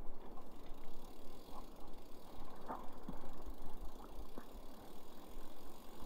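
Bicycle rolling over cobbles and paving, heard through a handlebar-mounted camera: a steady rattling rumble with a few sharp clicks.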